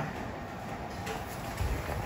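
Steady background hiss with no distinct machine sound, and a soft low thump about a second and a half in.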